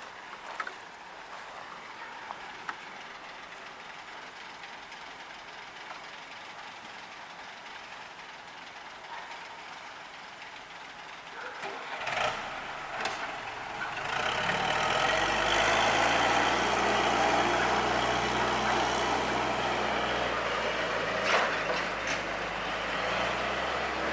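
Heavy earth-moving machine's diesel engine, low in the background at first. After a couple of knocks it comes up to a loud, steady run about fourteen seconds in and stays there.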